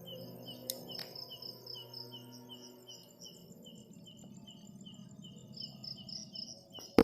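Crickets chirping in a steady rhythm, about three to four short chirps a second, with a second, higher insect chirping alongside. A faint low hum fades out about three seconds in, and a single sharp knock comes right at the end.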